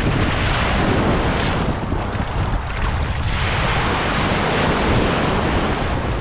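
Surf breaking and washing around the legs in shallow water, in two swells: one in the first second and a half and another from about three to five and a half seconds in. Wind buffets the microphone in a steady low rumble.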